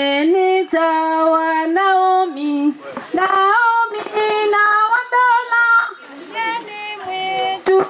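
A group of women singing a cappella, the voices amplified through a handheld microphone, holding long notes that step up and down in pitch. There is a sharp click near the end.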